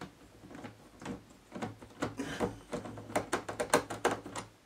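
Small clicks and knocks of parts and tools being handled on a record player's chassis, coming thick and fast near the end, over a low steady hum.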